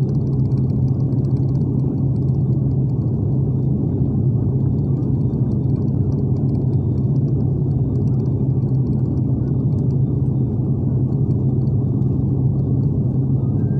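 Steady cabin drone of a jet airliner in cruise, the engine and airflow noise heard from a window seat as a deep, even hum.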